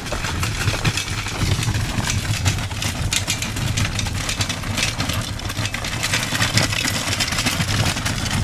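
Small wheels of a hand-pulled luggage trolley rolling over a gravel path: a steady rumble with rattle, overlaid by a constant crunch of gravel.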